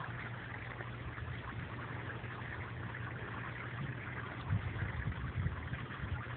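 Water jets from an inflatable splash-pad sprinkler mat spraying and pattering steadily onto the mat's surface, over a steady low hum. A few low rumbles come in during the second half.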